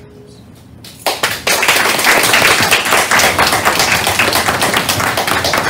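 Audience applauding, starting suddenly about a second in.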